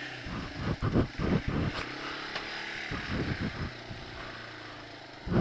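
ATV engine running at low revs as it moves off along a rough, muddy trail, with irregular thumps and rushes of noise over the steady engine note.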